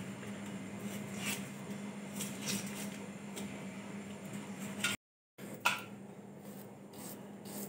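Faint scattered clicks and rustles of small fingers peeling garlic cloves, over a steady low hum. The sound cuts out briefly about five seconds in, then a knife clicks sharply as an onion is peeled over a steel plate.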